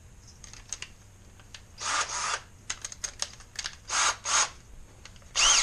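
A cordless drill with a wire brush in its chuck: the keyless chuck clicks as it is tightened, and the drill runs in three short bursts about every second and a half to two seconds.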